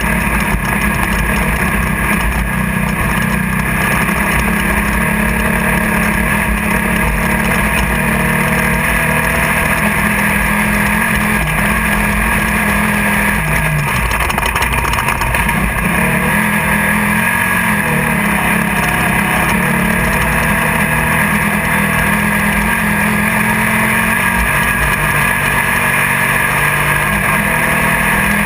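Off-road race car's engine running hard and steadily at speed, heard from inside the car over constant wind and chassis noise. The engine note drops briefly about halfway through, then picks back up.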